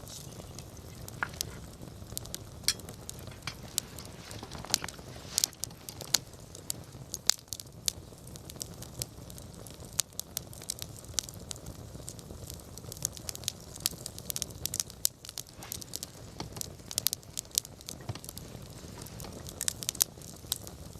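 Wood campfire crackling: many sharp, irregular pops and snaps over a low steady rumble.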